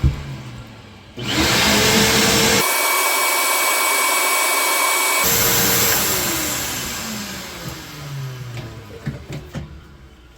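Wet/dry shop vacuum sucking up water draining from a washer's drain pump. Its motor winds down, starts up again about a second in with a rising whine, and runs steadily with a change in tone midway. It is then switched off and winds down with a falling whine, followed by a few clicks and knocks near the end.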